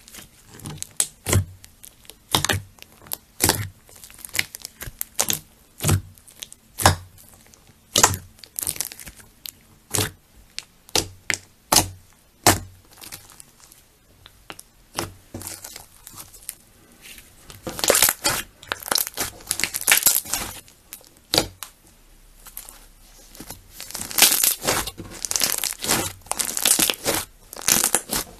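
Slime being squeezed and kneaded by hand, trapped air popping out in sharp clicks about once a second, then crowding into dense crackling runs in the second half.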